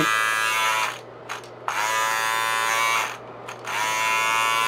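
London Drugs Premiere LD830 battery beard trimmer running with a steady electric buzz. Its motor cuts out about a second in and starts again, then cuts out and restarts once more near three and a half seconds.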